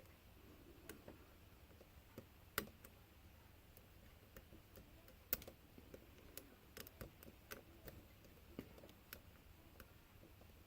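Faint, irregular metallic clicks of a lock pick and tension wrench working the pins inside a padlock, with two sharper clicks about two and a half and five seconds in.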